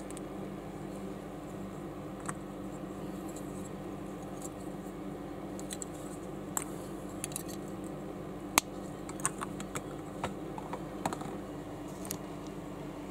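Small plastic building bricks clicking as parts are snapped together and handled by hand. There are scattered clicks, a sharp snap about eight and a half seconds in and a quick run of clicks after it, over a steady low hum.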